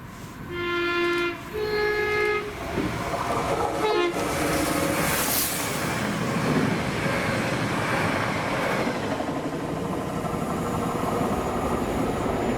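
TransPennine Express Class 397 electric multiple unit sounding its two-tone horn, a lower note then a higher one, then running past with a steady rushing noise.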